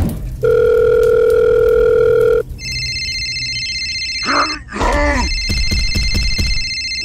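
Telephone sound effects: a steady beep tone for about two seconds, then a high electronic phone ring. About four and a half seconds in, a short sliding voice-like sound breaks the ringing, which then resumes.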